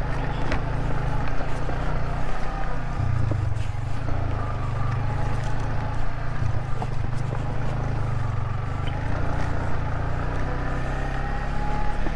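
Motorcycle engine running steadily while riding over a rough, stony track, with scattered short knocks from stones under the wheels.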